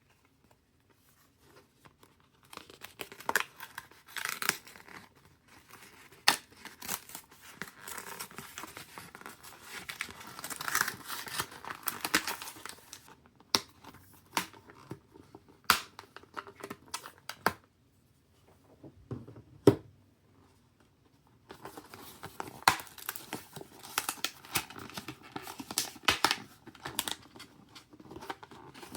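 Computer-part packaging being unboxed: plastic and paper tearing and crinkling, with sharp clicks and taps of boxes and parts being handled. It comes in stretches, with a quiet pause a little past the middle broken by a single click.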